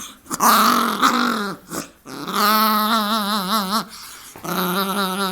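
Pet dog making a long, drawn-out growling noise during play-wrestling, in three breaths. The first is rougher, the middle one wavers up and down in pitch, and the last holds a steadier tone.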